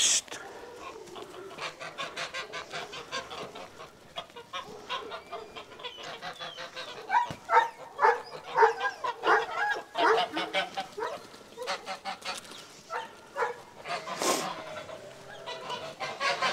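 A flock of domestic geese honking as they are driven along, with many short calls overlapping. A man gives a sharp "shh" hiss at the start to move them on.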